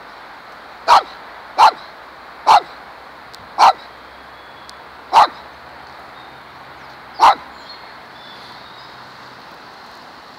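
A dog barking six times, single sharp barks spaced unevenly, the last about seven seconds in.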